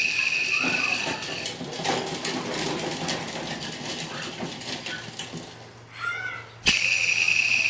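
A worn accessory-belt pulley bearing spinning freely with a high, steady whine and a grinding rasp that fades after about a second and a half. Near the end it is spun again, starting with a click, and the whine returns loud. The bearing is making too much noise and is due for replacement.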